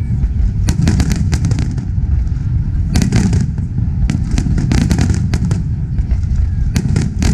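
Aerial fireworks display going off: clusters of rapid sharp cracks and bangs, about four volleys, over a continuous low rumble.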